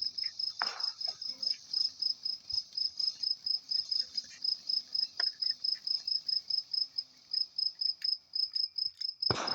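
Crickets chirping in a steady, even pulse of about five or six chirps a second. A single firework bang cuts in near the end.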